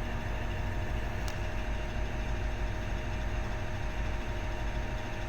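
Large diesel engine of a Komatsu PC3000 mining excavator running steadily, a constant low drone heard from inside the cab with a faint steady whine over it.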